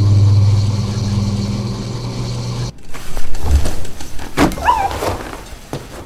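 Miele washing machine running with a steady low hum that cuts off abruptly about two and a half seconds in. A few knocks follow, then a short wavering whine.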